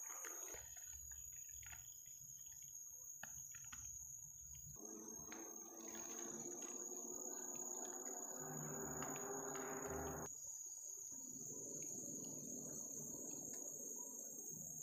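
Tropical forest insects keep up a steady, high-pitched drone. From about five to ten seconds in, a lower hum rises underneath and then cuts off; it returns more faintly near the end.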